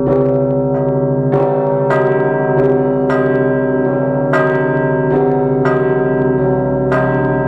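Church bells of the Pochaiv Lavra, an Orthodox monastery, ringing together: several bells struck one after another, a little under two strokes a second, over the steady hum of the larger bells still sounding.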